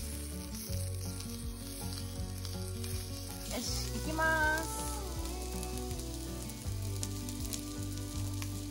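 Sausages sizzling and crackling in hot oil in a cast-iron skillet, with soft background music underneath.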